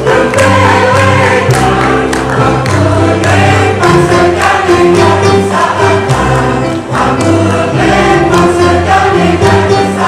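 Mixed choir of men and women singing in parts, with electronic keyboard accompaniment holding a steady bass.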